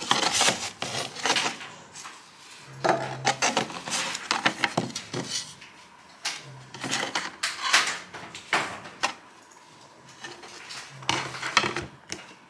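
Thin wood-finish sample boards being handled and shuffled, clacking, tapping and sliding against each other and the table in four bursts.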